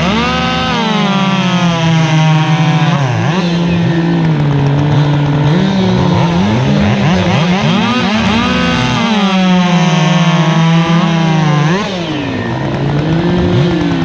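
Two-stroke racing chainsaws running at full throttle, their engine pitch dropping as they load in the cut and climbing again as they clear, more than one saw running at once. The sound eases briefly about twelve seconds in, then picks up again.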